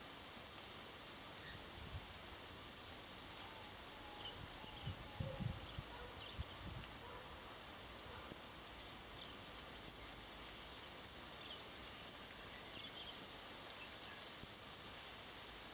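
European robin giving short, sharp, high ticking calls, some single and some in quick runs of two to five.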